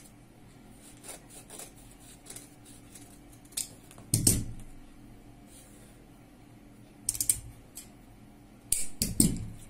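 Large steel tailor's shears snipping through stiff buckram in short, crisp cuts, with the stiff sheet rustling. There is a louder thump about four seconds in, and a quick run of loud snips near the end.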